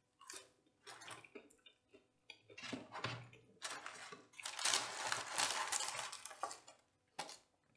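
Mukbang eating sounds, faint: fried chicken wings and fries being picked off a wooden serving board and chewed, as scattered small clicks and clatter that thicken into a denser stretch a little past the middle.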